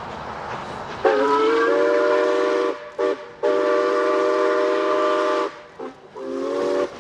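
Steam locomotive whistle sounding a chord of several notes: a long blast that slides up in pitch as it opens, a short toot, another long blast, a brief toot and a shorter final blast. A steady hiss of steam is heard before the first blast.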